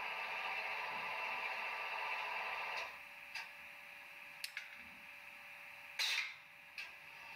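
Sound decoder of a Piko H0 model of a DB class 115 electric locomotive playing its engine sound at standstill: a steady running noise that cuts off about three seconds in. A faint hum remains, with a few sharp clicks and a short loud hiss about six seconds in.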